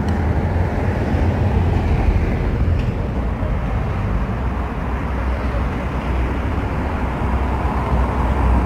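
Road traffic on a city street: a steady, even low rumble with no distinct single events.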